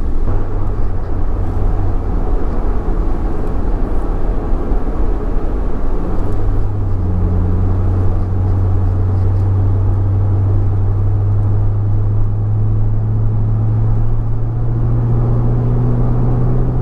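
Jaguar XKR's supercharged 4.2-litre V8 heard from inside the cabin while driving, a steady low engine note over road noise. The engine note strengthens about six seconds in and then rises slowly in pitch as engine speed climbs.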